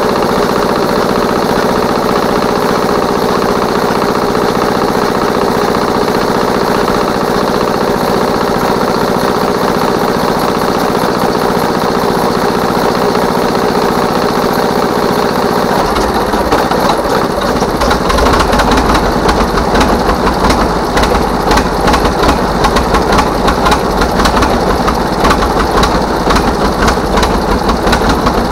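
The two-cylinder gasoline pony motor of a 1936 Caterpillar RD6 runs steadily, turning over the tractor's three-cylinder diesel. About halfway through the diesel fires and runs, bringing in a deeper, rougher, pulsing beat.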